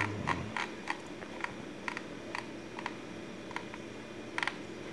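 Faint, even ticking, about two sharp ticks a second, over a low steady hum.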